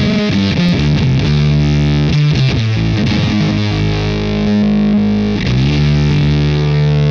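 Electric guitar played through a Fender Shields Blender fuzz pedal with its sub-octave engaged: thick distorted tone with a heavy low octave. A quick run of notes in the first few seconds gives way to longer held notes.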